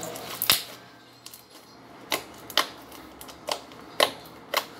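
Homemade cornstarch slime being squeezed and pressed by hand, giving off sharp clicks and pops, about six of them spread over a few seconds.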